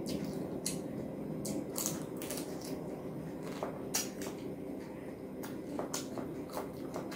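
Close-miked eating sounds from a person eating rice and curry with their hand: chewing with irregular short mouth clicks and smacks, and fingers working the rice on the plate.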